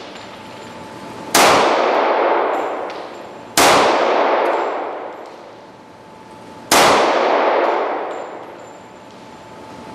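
Three shots from a Glock 36 pistol firing .45 ACP Golden Saber rounds, slowly spaced about two to three seconds apart, each one echoing and ringing out for about two seconds. No stoppage is heard: the pistol keeps cycling between shots.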